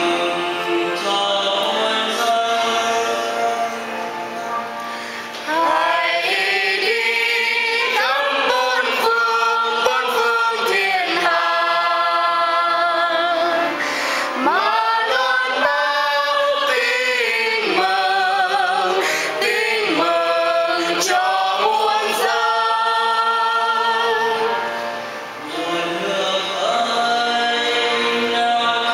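Church singing with accompaniment: a single voice sings with vibrato through most of the stretch, with fuller, choir-like singing at the start and again near the end.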